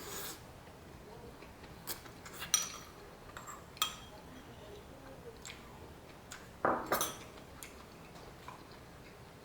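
Eating utensils clinking and tapping against dishes at a meal: a few light clicks, then a louder clatter of two or three knocks about seven seconds in.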